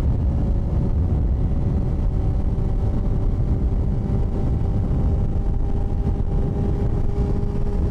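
Honda CBR sport bike's engine running at a steady cruise, with heavy wind rumble on the microphone.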